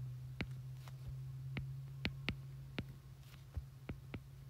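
Stylus tip tapping on a tablet's glass screen while handwriting, about eight light, sharp clicks at irregular intervals, over a steady low hum.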